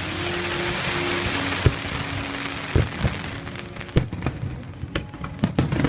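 Fireworks going off: a dense crackling hiss in the first half, then a string of sharp booms, coming closer together near the end.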